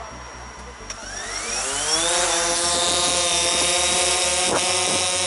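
DJI Phantom 4 Pro quadcopter's four motors starting with a click about a second in, then spinning up in a rising whine and settling into a steady propeller whine as the drone lifts off and hovers.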